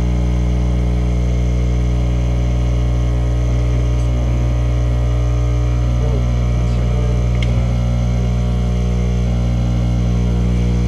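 Loud, steady electrical hum with a deep buzz, cutting off suddenly at the end.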